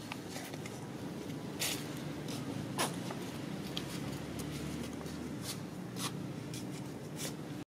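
Scattered light crinkles and scratchy rustles of a thin plastic bag being handled by a young monkey, over a steady background hum.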